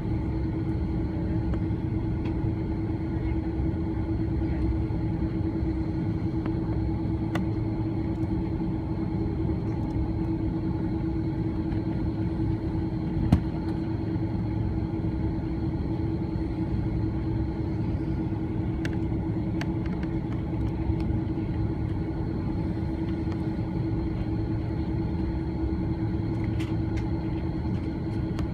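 Steady cabin rumble of an Airbus A330-300 taxiing on idling engines, heard from inside the cabin, with a constant hum tone running through it. A single short knock about thirteen seconds in.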